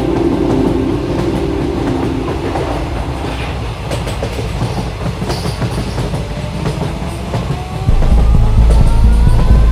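Passenger train running, its wheels rattling over the rails in a steady clatter. About eight seconds in, a much louder low rumble sets in and a few slowly rising tones join it.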